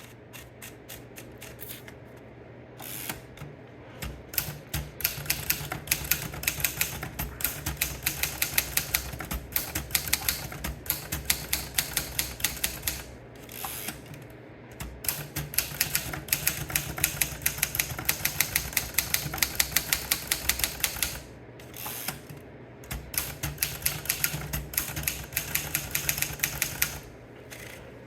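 Imperial Good Companion portable manual typewriter being typed on: quick runs of sharp key-strike clicks, several a second, broken twice by short pauses.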